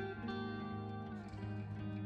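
Background music: a melody of quickly changing notes over a steady low tone.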